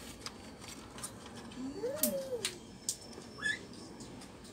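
Light clicks and taps of the plastic laptop case being handled and pried. About two seconds in, a faint call rises and falls in pitch, and a short rising chirp follows near the end.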